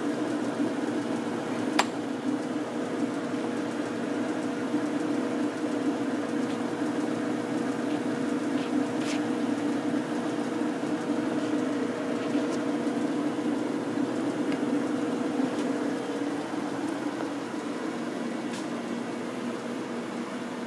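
American Pacemaker geared-head engine lathe running with a steady, quiet whir of its gearing, freshly oiled after arriving with too little oil. A sharp click comes about two seconds in and a few faint ticks follow. A thin steady tone in the hum drops out about three-quarters of the way through.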